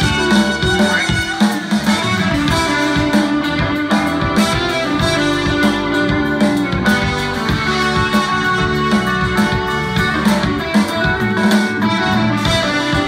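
A live rock band playing, with strummed electric guitar to the fore over a steady drum beat.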